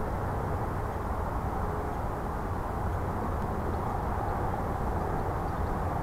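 Steady low outdoor background noise with no distinct sound standing out.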